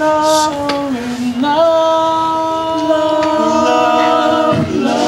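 Men's voices singing close a cappella doo-wop harmony on wordless held chords. The chord changes about a second and a half in and again near the end.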